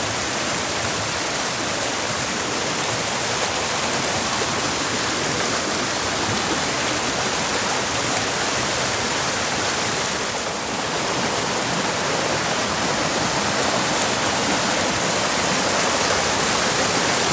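Fast, swollen forest stream rushing and splashing over boulders in small rapids, a steady loud rush of white water, swelled by snowmelt.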